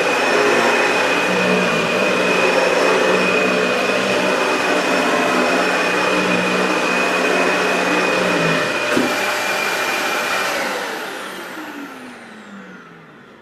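Dyson DC65 upright vacuum cleaner running with a steady high whine while cleaning potting soil out of carpet, then switched off about ten seconds in, its motor winding down with a falling pitch.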